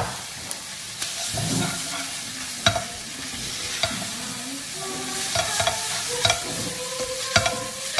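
Shirataki noodles and shrimp sizzling in a non-stick frying pan while a spatula stirs and tosses them, with a steady hiss and sharp clacks of the spatula against the pan every second or so.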